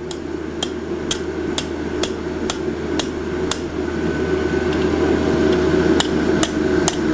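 Hammer blows on hot steel over the edge of an anvil, about two a second: eight strikes, a pause of about two seconds, then four more, curling the vine scroll of a forged leaf. A steady rushing noise runs underneath.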